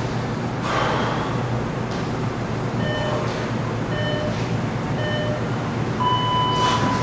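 Workout interval timer counting down: three short beeps a second apart, then one long beep of a different pitch marking the start of the next Tabata work interval, over steady room noise.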